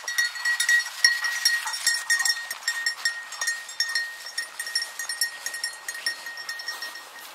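A bird dog's collar bell jingling continuously as the dog runs through dry grass. It is loudest near the start and fades toward the end.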